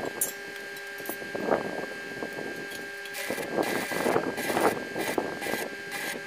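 Stick (arc) welding on steel: the electrode's arc crackles and sputters in dense, irregular spurts from about three seconds in, after a few scattered crackles. A steady high tone runs underneath.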